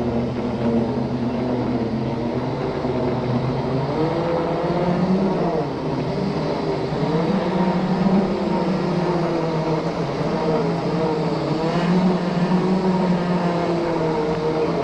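Segway x2 off-road self-balancing scooter's electric drive whining as it is ridden, the whine rising and falling in pitch with speed over a steady rush of noise.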